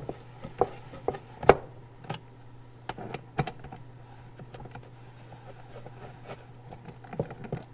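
Irregular clicks and knocks of a T-handle wrench turning and loosening 8 mm bolts in a plastic headlight housing, the loudest knock about a second and a half in. A steady low hum runs underneath.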